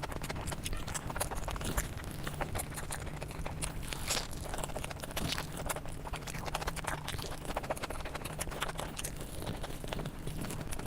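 Close-miked eating: chewing and wet mouth clicks, many small irregular clicks over a steady low hum.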